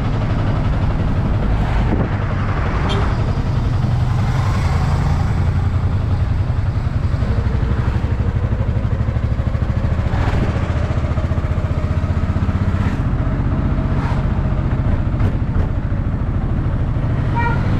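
Autorickshaw's single-cylinder engine running steadily under way, heard from the open driver's cab, with a few short knocks and rattles from the body.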